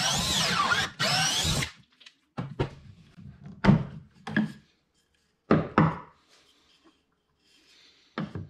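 DeWalt 12-volt cordless drill boring a pocket hole through a pocket-hole jig into a hard maple strip, its whine sweeping up and down in pitch, dropping out for a moment about a second in and stopping just under two seconds in. Then several separate wooden knocks and clunks as the drill is set down on the bench and the board is handled and taken out of the jig.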